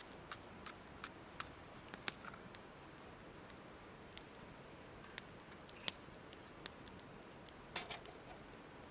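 Wood fire crackling: irregular sharp pops and ticks over a faint steady hiss, with a brief cluster of crackles near the end.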